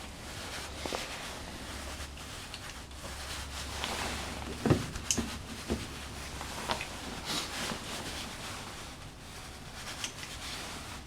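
Handling and stripping of a power cable's insulation: scattered knocks, clicks and rubbing, the loudest cluster about five seconds in, over a low steady hum.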